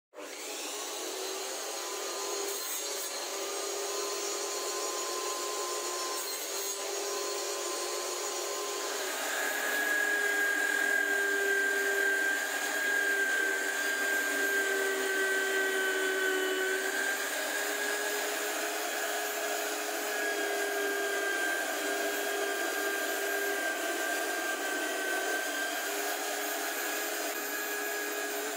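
Homemade drill press's electric motor running at high speed with a steady whine while its bit bores into a wooden block. About nine seconds in it grows louder and a higher whine joins it.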